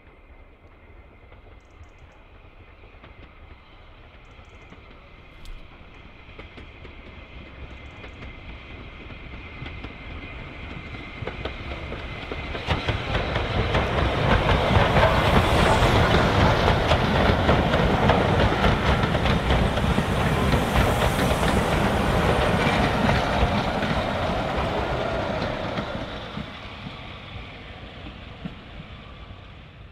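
Ex-LSWR M7 class 0-4-4 tank steam locomotive no. 30053 and its coaches passing by: the sound grows steadily as the train approaches, is loud for about ten seconds with the rumble and clatter of wheels on the rails, then fades away near the end.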